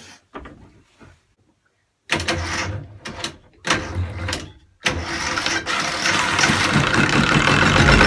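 Farymann 30A marine diesel engine being started: two short bursts of cranking about two and three and a half seconds in, then it catches about five seconds in and runs, getting steadily louder.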